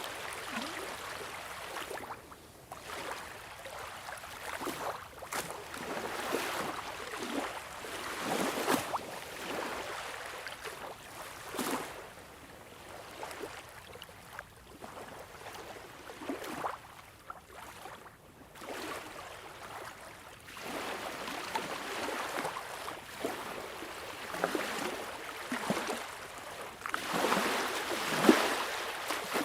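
Sea waves washing ashore in uneven surges, each a rush of hissing water with splashes, easing off between them; a bigger wave breaks near the end with a sharp splash.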